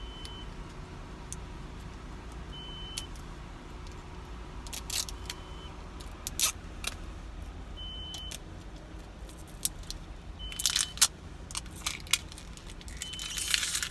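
Plastic wrapping of an LOL Surprise ball crinkling and tearing as it is peeled off by hand, in irregular crackles that bunch up about ten seconds in and again near the end, over a steady low hum.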